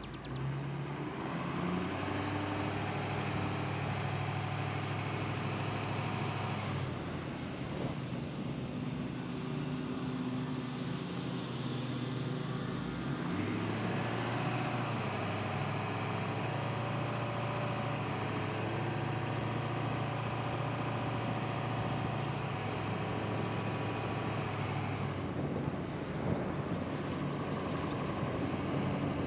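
Car engine and tyre noise while driving: a low engine hum that eases off about seven seconds in, picks up again about halfway through and eases once more near the end.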